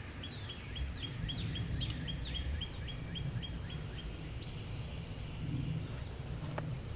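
A songbird repeating short high chirps, about four a second for several seconds, over a steady low rumble; a single sharp click near the end.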